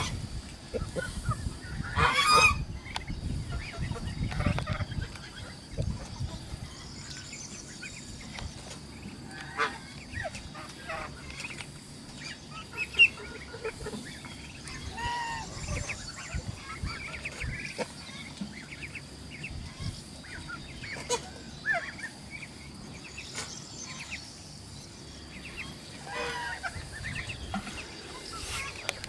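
Farmyard poultry calling: a loud honking call about two seconds in, then scattered shorter calls and peeps, with one sharp click near the middle and a faint steady high-pitched tone underneath.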